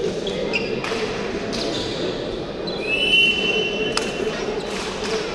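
Indistinct chatter of players and spectators echoing in a large sports hall, with short high sneaker squeaks on the court. A single sharp slap about four seconds in, a hand striking the peteca on the serve.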